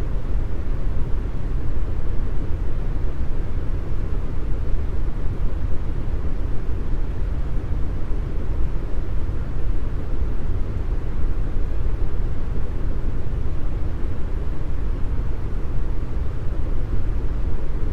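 Deep brown noise: a steady, even rush with most of its strength in the bass, thinning out toward the treble.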